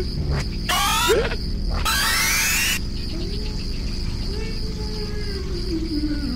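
Crickets chirping steadily, cut through by short bursts of rising, swooping tones and a long, low, wavering moan in the middle.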